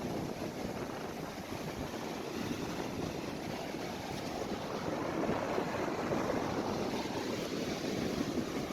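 Surf washing on a beach with wind on the microphone: a steady rushing that swells a little about halfway through.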